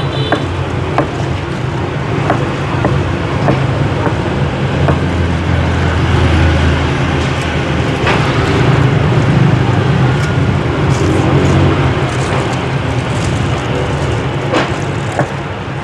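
Road traffic running steadily past, with a few sharp clicks and knocks.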